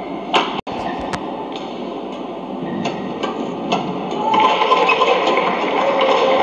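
Badminton rally in an indoor arena: a few sharp racket hits on the shuttlecock over steady crowd and hall noise, with the sound dropping out for an instant about half a second in. The crowd noise swells in the second half.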